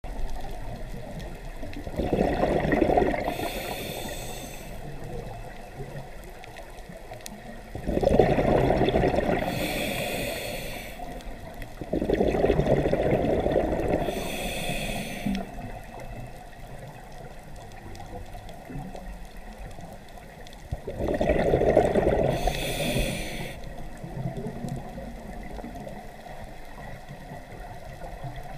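Scuba diver breathing through a regulator underwater, four slow breath cycles: each a loud low rumble of exhaust bubbles and a short hiss of air through the demand valve, with quieter water noise between breaths.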